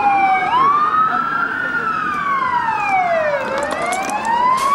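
Emergency vehicle sirens wailing, two or more overlapping, one tone sweeping slowly down in pitch and turning back up about three and a half seconds in.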